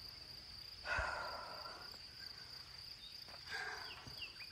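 A hiker breathing hard while climbing a steep uphill: a heavy breath about a second in and another near the end. Under it runs a steady high insect drone.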